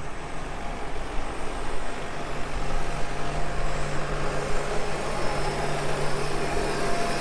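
Tractor engine running steadily as it pulls a precision seeder, a constant hum with a low steady tone that comes in about two seconds in.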